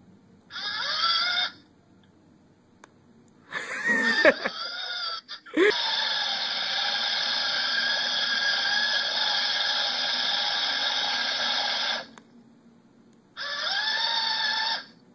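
Lego NXT servo motors whining in several bursts as the robot drives and turns, the longest a steady whine of about six seconds. It sounds thin and band-limited, as if heard through a phone's microphone over an internet link.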